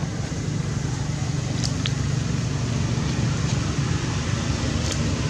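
Steady low rumble of a running engine, with a couple of faint, brief high chirps about a second and a half in.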